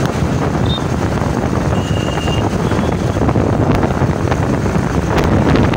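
Wind buffeting the microphone on a moving two-wheeler, over a steady low road and engine rumble.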